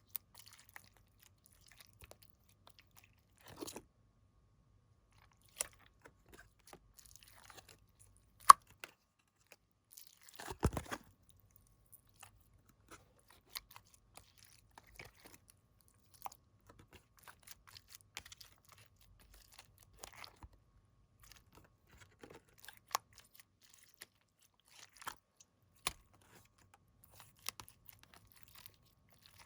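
Slime being handled and mixed by hand: sparse short clicks and crackles, with one sharp loud click about eight and a half seconds in and a heavier burst of crackling a couple of seconds later.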